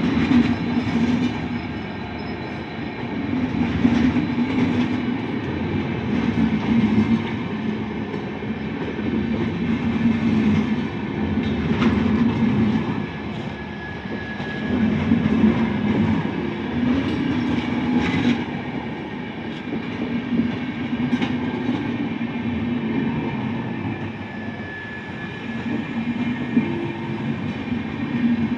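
Diesel-hauled Indian Railways superfast express train running on the line, its wheels clattering over the rail joints with scattered sharp clicks. The rumble swells and eases every few seconds.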